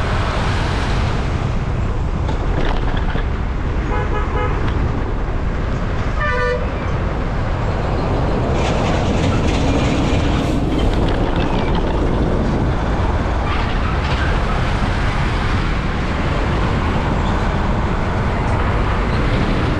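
Steady road and wind rumble from riding along a highway. A vehicle horn honks briefly about four seconds in and again about six seconds in.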